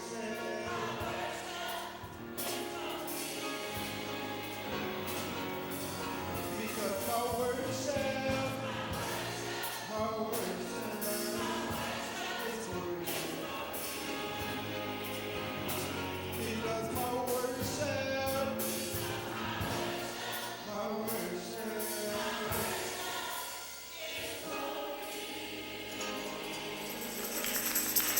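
Gospel choir singing with a band and drums. Near the end a tambourine starts shaking in a fast steady rhythm.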